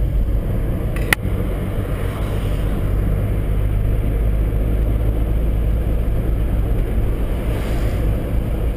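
Car driving along a city street, heard from inside the cabin: a steady low rumble of engine and road noise. A single sharp click comes about a second in.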